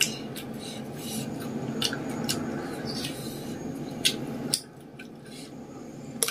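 Close-up eating sounds: scattered short clicks and crunches of fingers picking through food in a stone mortar and of chewing. These run over a steady low hum that cuts off about four and a half seconds in.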